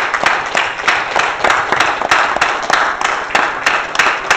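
Congregation applauding, with one pair of hands close by clapping in a steady beat of about four claps a second.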